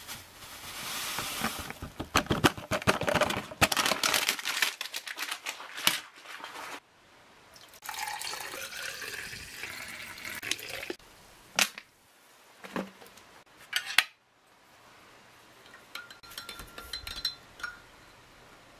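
Orange drink powder poured from its pouch into a drinking glass, water poured in, and the drink stirred, with a spoon clicking and knocking against the glass many times. Near the end there are a few single knocks and a faint ringing of the glass.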